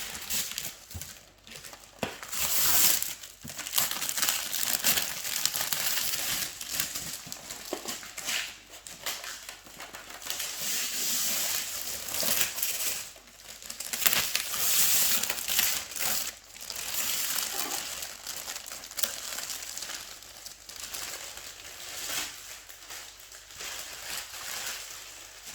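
Packaging being handled and pulled away during an unboxing, crinkling and rustling in irregular bursts.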